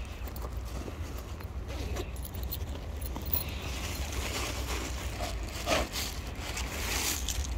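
Black fabric bag rustling and scraping as a tabby cat rubs against it, with a few sharper brushes, over a steady low rumble.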